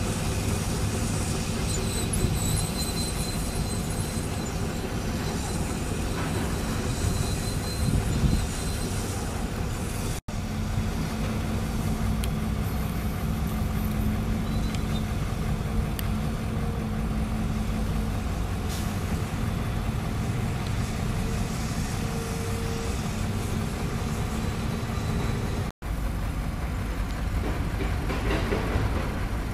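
Heavy diesel machinery running steadily, an excavator's engine drone with a faint squeal over it. The sound breaks off for an instant twice, about ten and twenty-six seconds in.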